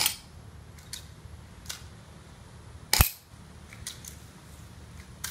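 Walther PPQ spring airsoft pistol being cocked and fired without its suppressor: a series of short, sharp clicks and snaps a second or so apart, the loudest about three seconds in.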